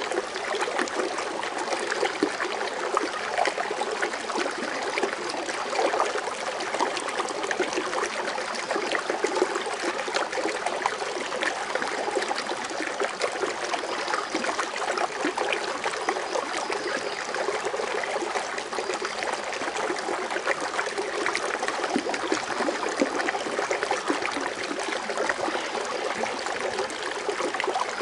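Foaming water fountain splashing and trickling steadily: a continuous wash of water with many small splashes.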